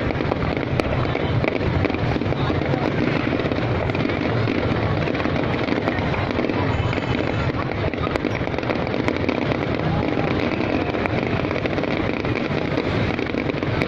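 Fireworks display going off continuously, a dense mix of low booms and crackling with no breaks.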